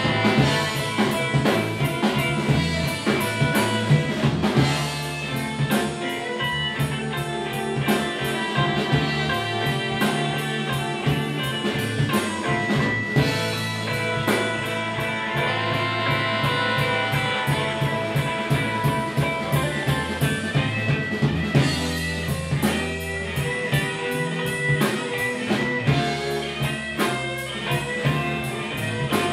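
Live blues band playing West Side Chicago blues: electric guitar and saxophone over bass and drums in an instrumental passage, with no singing.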